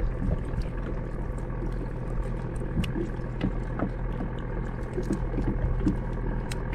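Small boat's engine idling steadily, with scattered light clicks and knocks over it.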